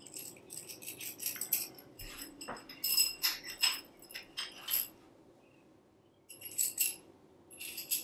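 Metal tensegrity tubes clinking against each other as they are handled, with the metal end clips of the elastic cord links jingling. The light clinks come in quick clusters with a short ringing, with a pause of about a second past the middle.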